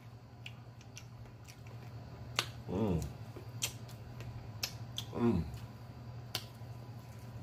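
Wet lip-smacking clicks while eating a sauced smoked rib, with two short "mmm" moans falling in pitch, about three and five seconds in. A steady low hum runs underneath.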